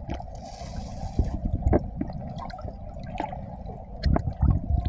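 Water sloshing and trickling, with scattered sharp clicks and knocks over a steady low rumble.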